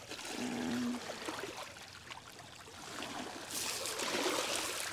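River water lapping and splashing against shoreline rocks, louder in the last second and a half.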